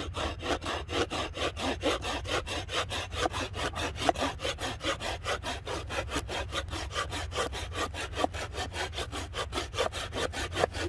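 Bahco Laplander folding saw cutting through a branch a little over an inch thick in quick, even back-and-forth strokes, the blade cutting on both the push and the pull.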